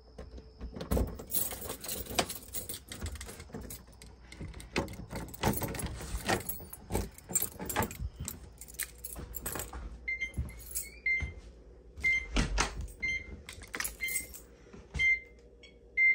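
Keys jangling and rattling, with scattered clicks and knocks. From about ten seconds in, a run of short, high electronic beeps repeats roughly every half second to second.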